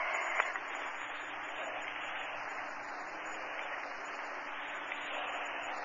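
Steady hiss of an old magnetic-tape recording, with a faint low steady tone under it and a small click about half a second in.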